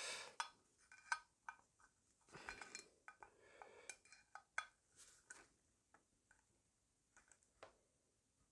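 Faint, irregular metallic clicks and short scrapes of a screwdriver turning a small disc check assembly down into a Carter WO carburetor casting as it is tightened home.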